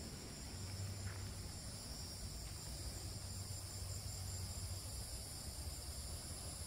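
Steady insect chorus, a continuous shrill trill at several high pitches, over a faint low rumble.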